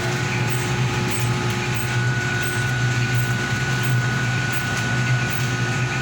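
Steady engine-room machinery hum: a constant low drone with a thin, high steady whine over it.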